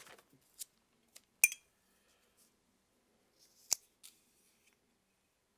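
Hands handling small souvenir pieces and bubble-wrap packaging: about five sharp, separate clicks, the loudest about a second and a half in with a short ring, another strong one near four seconds.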